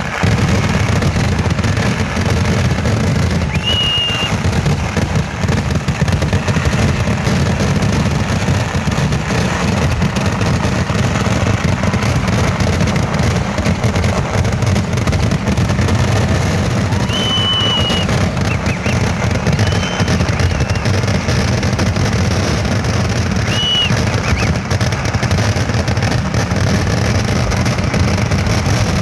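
Dense, continuous barrage of festival fireworks: rapid, overlapping bangs and crackling with no break, cut through a few times by a short, high whistle.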